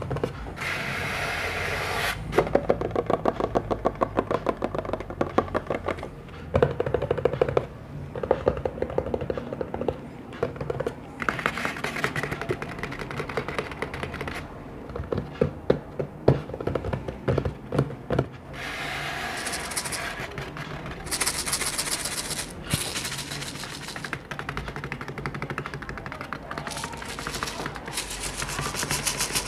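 Rapid tapping and scratching on assorted objects, in runs of quick strokes whose texture changes every few seconds.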